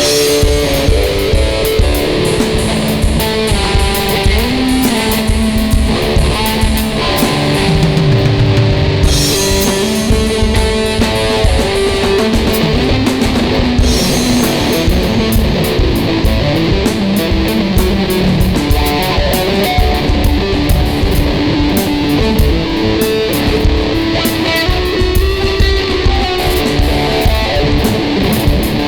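Ibanez electric guitar playing held notes and riffs over a steady drum beat, a loose instrumental rock jam.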